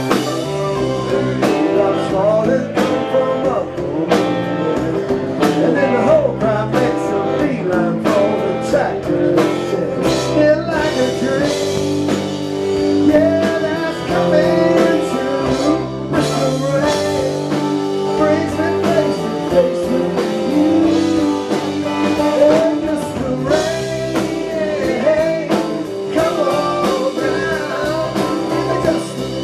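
Live band music: strummed acoustic guitar, upright bass and drums, with singing in places.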